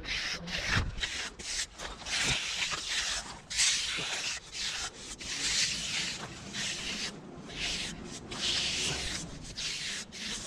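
A hand trowel scraping over the surface of freshly poured concrete in repeated strokes, about one a second, each a short hissing rasp with brief pauses between.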